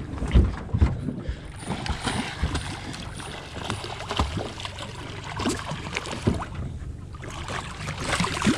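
Water splashing and sloshing beside a small aluminium boat as a hooked Spanish mackerel thrashes at the surface, with irregular low thumps throughout.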